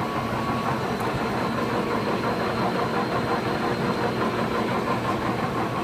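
Steady hum of running machinery with a faint constant whine, unchanging throughout.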